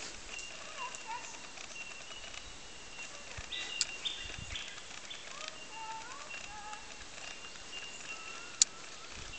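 Birds chirping and calling in the bush, short scattered chirps over a thin steady high-pitched tone. A single sharp click near the end is the loudest sound.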